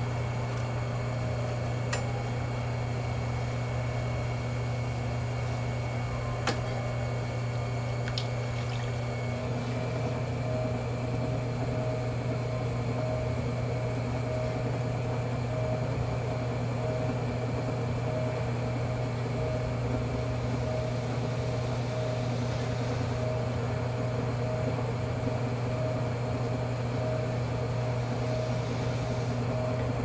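Electric potter's wheel running, its motor giving a steady low hum. About nine seconds in, a higher, slightly pulsing whine joins it.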